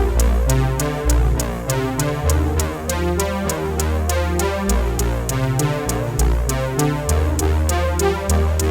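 Electronic background music with a steady drum-machine beat, heavy bass and synthesizer melody.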